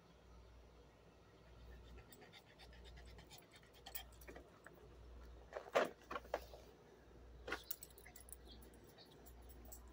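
Small dogs moving close together: collar tags jingling and light panting, with one short bark about six seconds in and a couple of weaker sharp sounds after it.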